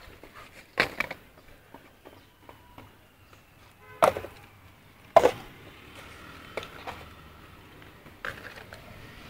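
Scattered sharp knocks and clacks a second or more apart, the loudest about four and five seconds in, over a faint steady background.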